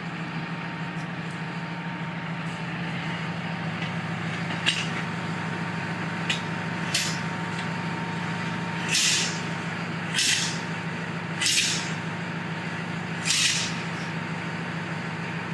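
Trigger spray bottle squirting lubricating liquid onto the tire, four short hissing sprays in the second half, with a few light clicks before them. A steady low hum runs underneath.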